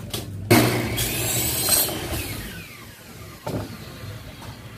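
Aluminium sliding-window frame being handled: a sudden metallic scrape and clatter about half a second in that fades over a couple of seconds, then a short knock later on.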